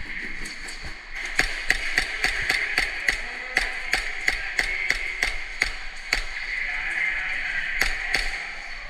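Airsoft gunfire during a game: a string of sharp, irregular cracks, a few a second from about a second in, over a steady hiss.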